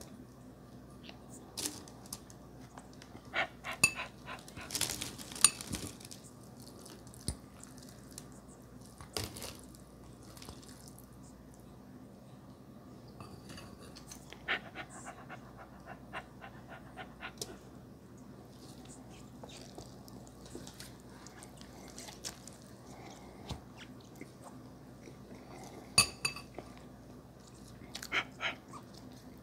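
Close-miked noodle eating: bursts of chewing and mouth sounds with sharp clicks of a metal fork against a glass bowl, coming in scattered clusters, loudest about four to six seconds in and again near the end.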